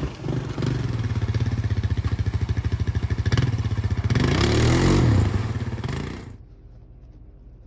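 Motorcycle engine running with an even pulsing beat, revving up and back down about four seconds in, then cutting off sharply about six seconds in, leaving only a faint steady hum.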